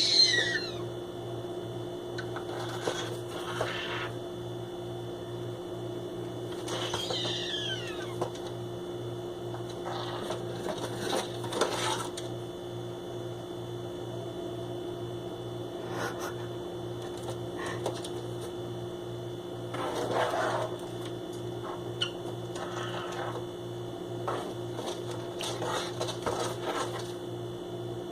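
Green-cheeked conure scratching and rustling about in cardboard boxes, with intermittent short scratchy noises and one falling squeak about seven seconds in. A steady pulsing machine hum runs underneath.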